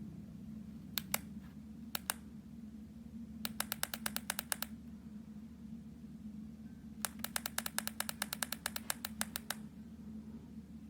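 Bursts of sharp mechanical clicking over a steady low hum: two pairs of clicks, then two rapid runs of about eight clicks a second, the second run longer.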